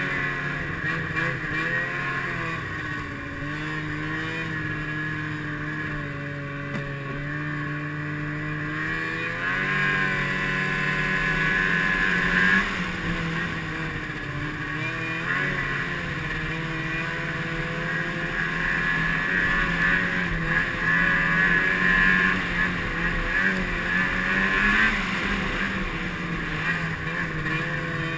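Snowmobile engine running while riding a trail, its pitch rising and falling as the throttle is worked, louder from about ten seconds in and again in the second half.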